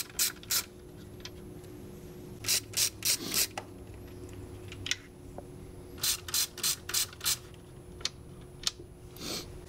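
Hand ratchet with a Torx bit clicking in several short runs as the screws holding the plastic intake spreader to the intake manifold are backed out.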